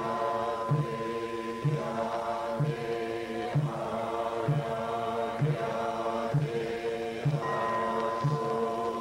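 Group Zen sutra chanting in unison on a steady pitch, kept in time by a low drumbeat about once a second. A clear ringing tone sounds over it at the start and again near the end.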